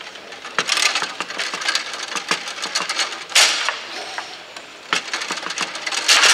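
Bonzini foosball table in fast play: rapid clicks and knocks of the ball striking the players' figures and the table walls, with the rods clacking. There is a louder crack about three and a half seconds in.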